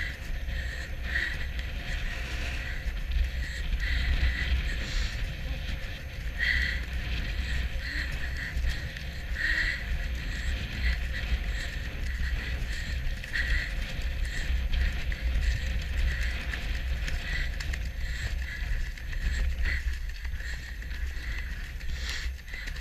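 Wind buffeting the microphone of a rider on a cantering horse, with hoofbeats on turf and the irregular rattle and creak of tack.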